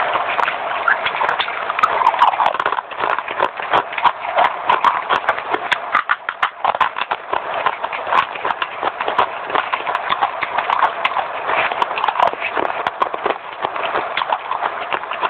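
Dry clay pieces being bitten and chewed close to the microphone: a fast, dense run of crisp crunches and crackles.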